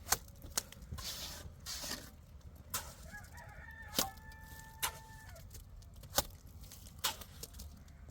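A rooster crows once, a single held call about three seconds in, among sharp scattered clicks and knocks.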